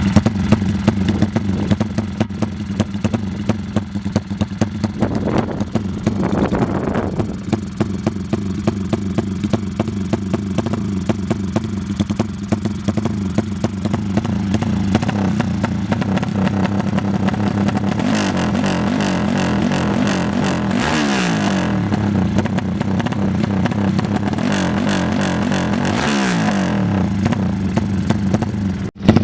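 Motorcycle engine running steadily; twice, about two-thirds of the way in and again near the end, a lower note falls away in pitch.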